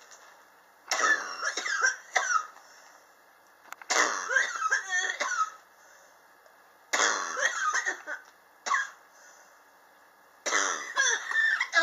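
A person's chronic cough in four fits, each a second or two of several quick hacking coughs, about three seconds apart. The cough is long-standing, and the sufferer blames it on sharp temperature changes in the home.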